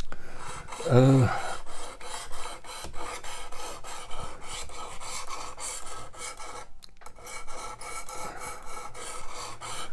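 Diamond sharpening plate of a Work Sharp Precision Adjust rasping back and forth along a clamped steel kitchen-knife edge in quick, repeated strokes, with a brief pause about seven seconds in. This is the coarse stage, raising a burr before moving up to the 600 grit.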